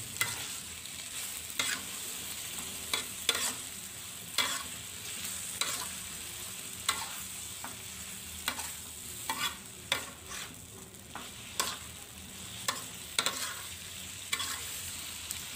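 Metal spatula scraping and tossing pak choy, egg and sauce around a wok, with irregular scrapes and clinks about once a second over a steady frying sizzle.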